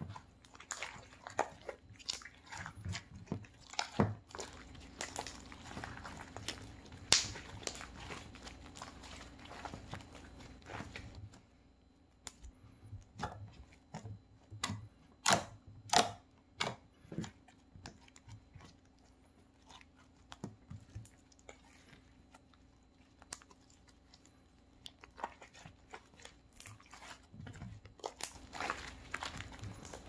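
Slime being squeezed, stretched and poked by hand, making irregular wet clicks and pops. Busy at first, then sparser in the middle with a few sharp pops, and busier again near the end.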